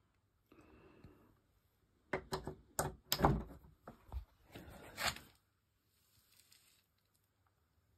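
A quick run of sharp clicks, knocks and rustling, as of things being handled and moved about, loudest from about two to five seconds in.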